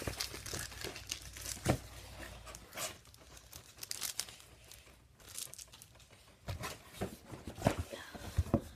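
Plastic packing tape being peeled and torn off a cardboard shipping box, with crinkling and scattered knocks as the cardboard is handled, a louder knock about two seconds in and several more near the end.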